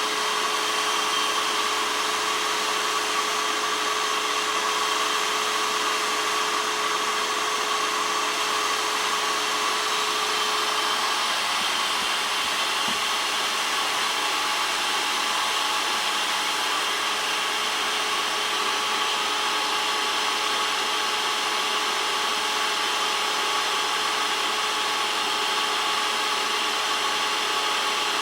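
Drill grinding machine running steadily, its motor and grinding wheel giving a continuous whine. A lower hum drops out about eleven seconds in, and a higher tone comes in a few seconds later.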